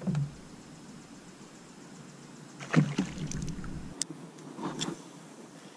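Knocks and thumps of fishing gear being handled inside a small canoe, with a double thump about three seconds in and a couple of sharp clicks near the end.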